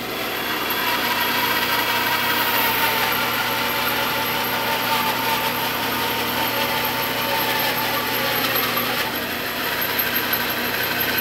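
Bandsaw running and cutting a wide board fed through on edge by hand: a steady machine hum with the blade working through the wood.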